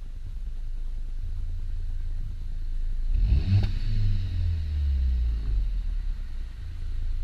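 Volkswagen Golf Mk7 GTI facelift's 230 PS turbocharged 2.0-litre four-cylinder running with a low rumble. About three seconds in it revs up sharply, then the revs fall away over the next two seconds.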